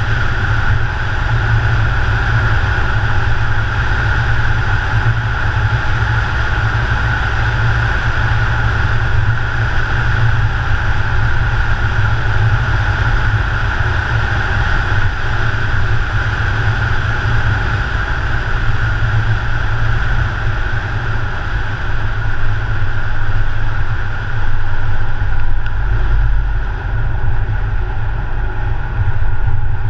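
A car driving at a steady cruising speed: continuous engine, tyre and wind noise that stays even throughout.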